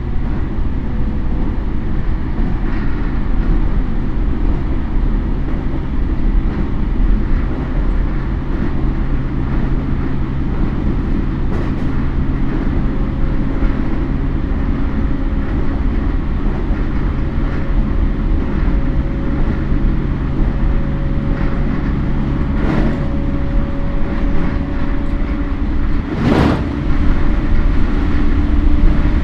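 Running sound of a Toei 10-300 series EMU with Mitsubishi IGBT inverter drive, heard on board: a steady rumble of wheels on rail with a faint motor tone that creeps slightly up in pitch. A brief loud rush passes about 26 seconds in.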